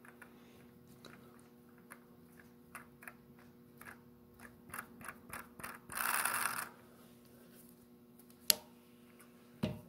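Small clicks and ticks of a tool in the mill's drill chuck being turned by hand into a small brass gear, coming thicker and faster, then a short scraping rasp about six seconds in. A single sharp click comes near the end, then a low thump, over a steady hum.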